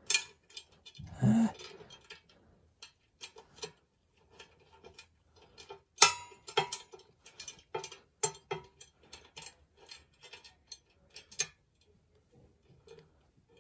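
Irregular metal clicks and clinks of a washer and nut being worked by hand onto a bolt through a steel log-catcher bracket, the loudest clink about six seconds in.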